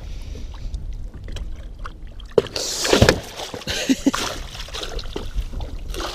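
Water splashing and sloshing as a pike thrashes in a landing net at the boat's side. A sharp knock comes about two and a half seconds in, the splashing is loudest just after it, and small clicks of handling follow.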